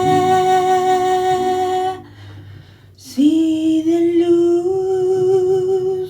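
A singer holding two long sustained notes, the second scooping up into pitch, wavering near its end and cutting off suddenly, over faint low accompaniment.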